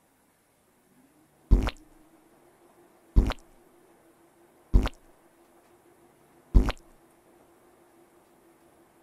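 Cartoon squishy plop sound effects of frosting squirted from a piping bag, four in all about a second and a half apart, one for each cupcake. A faint steady hum runs beneath them.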